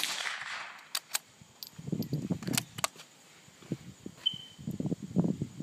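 A .22 LR rifle shot right at the start, its crack trailing off over about a second. Several sharp clicks follow about a second to three seconds in.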